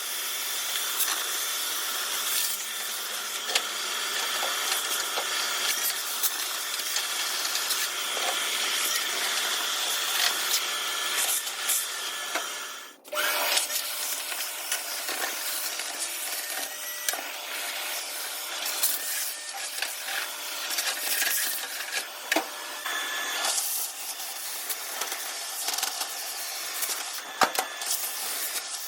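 Vacuum cleaner running with a steady whine while sucking dirt and mouse-nest debris out of an old steel tool box, with scattered clicks and rattles as debris hits the nozzle. It cuts off abruptly about 13 seconds in, then resumes.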